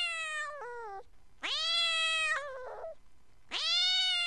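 Domestic cat meowing: long drawn-out meows about two seconds apart, each rising then sagging slightly in pitch.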